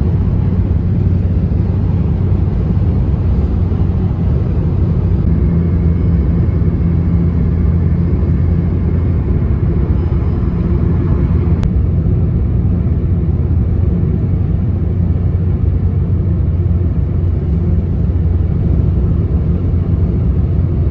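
Steady low rumble of a car driving at highway speed, heard from inside the cabin: tyre, road and engine noise.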